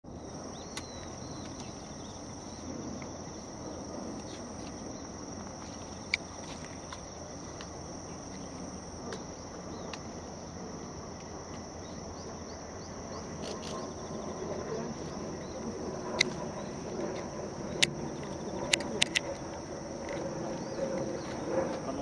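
Steady, high-pitched insect trilling over a low background rumble, with a few sharp clicks in the second half.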